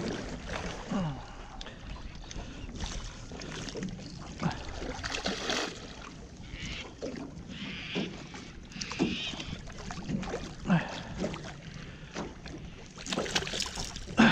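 Water splashing beside a boat as a hooked Murray cod thrashes at the surface and is scooped into a landing net, with irregular short splashes and knocks.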